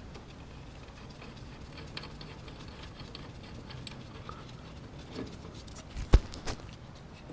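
Small metal clicks and rattles of shock-absorber mounting hardware being threaded and fastened by hand, with two sharp metal knocks about six seconds in.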